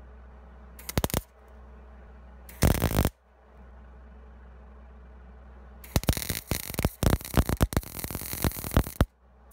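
MIG welder arc crackling and sputtering for about three seconds as an end cap is welded onto thin-wall 1-inch square steel tube, starting about six seconds in. Two short bursts come earlier, near one and near three seconds in.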